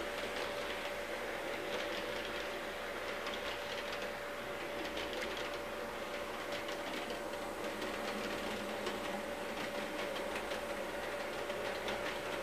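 HO-scale model train running around its track: the locomotive's small electric motor gives a steady whine, over a dense run of light clicks from the wheels on the rails.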